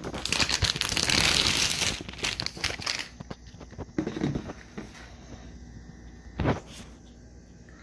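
Motherboard packaging being handled and opened: a dense crinkling rustle for the first three seconds, then quieter handling with a few light knocks and one short thump about six and a half seconds in.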